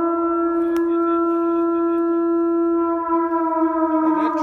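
Air-raid siren sounding one steady tone, its pitch starting to fall about three seconds in.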